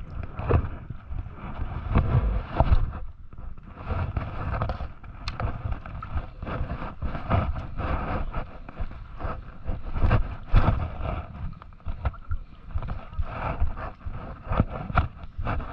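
Shallow seawater sloshing and splashing around a person wading, in irregular surges.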